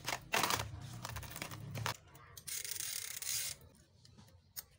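Towel rubbing and a bicycle chain's steel links rattling as the chain is wiped and lifted out of a plastic tray, then a steady hiss lasting about a second. A few light clicks near the end as the chain is fitted onto the sprocket.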